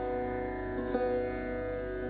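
Sarod playing a slow instrumental passage: one plucked note about a second in, ringing on over steady held notes.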